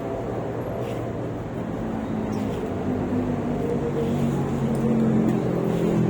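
A motor vehicle's engine running steadily and slowly getting louder, as if drawing nearer.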